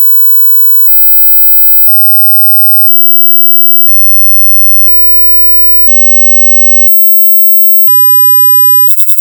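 Electronic hearing-test tones: steady beeps that jump to a new pitch about once a second, each sounding several pitches at once, breaking into a quick run of short beeps at the very end.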